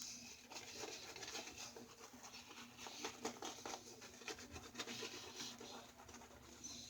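Faint rubbing and scattered light clicks of small shaving gear being handled and wiped by hand.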